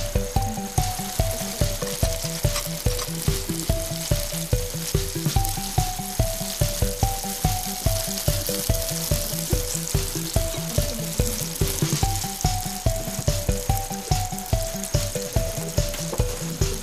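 Lumpia deep-frying in a wok of hot oil, sizzling steadily, with background music over it: a steady beat and a stepping melody.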